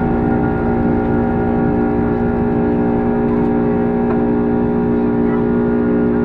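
Boeing 767-300's Rolls-Royce RB211 jet engines heard from inside the cabin: a steady hum with several held tones over a low rumble, unchanging throughout.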